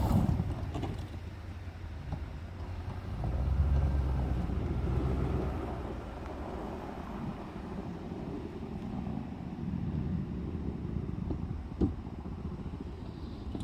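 Toyota Tundra pickup's engine running while plowing snow, its rumble swelling for a couple of seconds about three and a half seconds in, with one sharp click near the end.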